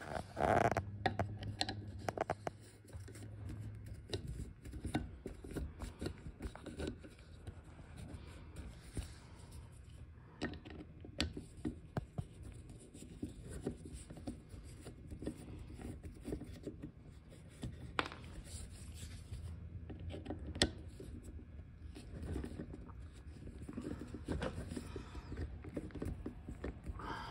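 Small screws being turned out of a Remington 597's steel action part with a hand-held hex-shank screwdriver bit: faint scraping and rubbing of metal on metal, broken by scattered small clicks and a few sharper ticks.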